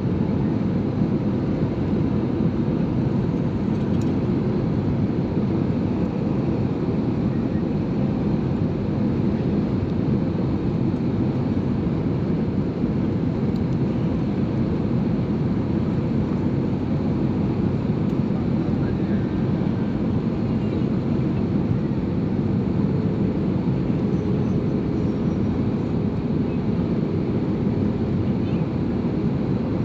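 Steady cabin noise of a passenger jet on its landing approach, a low, even rush of engines and airflow that does not change over the half minute.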